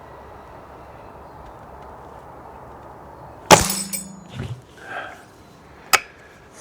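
A single shot from an Air Arms TX200 Hunter Carbine .177 spring-piston air rifle about halfway through: a sharp crack followed by a brief low hum. A few softer knocks follow, then a sharp click near the end.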